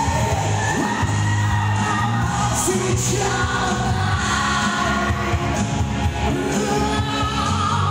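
A man singing into a handheld microphone over backing music, both amplified through stage speakers.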